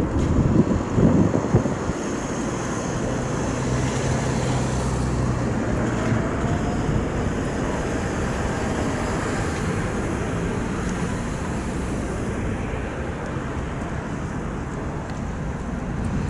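Airbus A220-300 jet engines (Pratt & Whitney PW1500G geared turbofans) running steadily as the airliner moves on the runway. Wind buffets the microphone, hardest about a second in.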